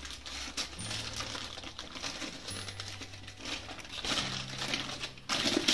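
Thin plastic sheet crinkling and rustling in irregular crackles as it is peeled open and unwrapped from a frozen roll.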